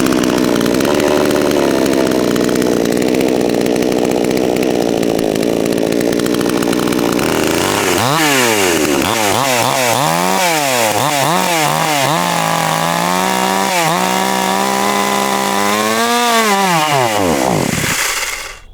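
Cheap gas chainsaw running, steady at first, then revved up and down several times before it settles, rises once more and winds down to a stop just before the end. The saw is struggling to stay running.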